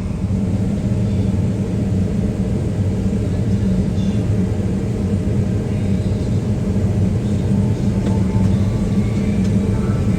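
A large diesel engine running steadily, a low, even drone.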